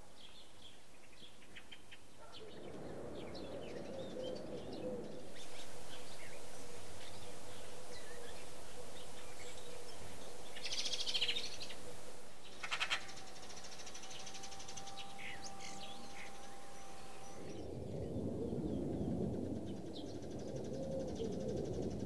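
Small songbirds chirping and calling, with short high notes throughout and a brief trill about eleven seconds in. A low rumble sits under the calls near the start and again near the end.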